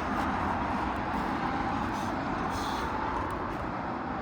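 Steady outdoor background noise, with faint clicks and a short scrape about two and a half seconds in as an asphalt roof shingle is slid back into place under the lifted course.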